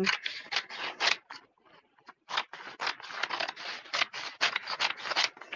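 Scissors snipping through a decor transfer sheet on its paper backing: a short run of quick cuts, a pause about a second and a half in, then a longer run of rapid snips.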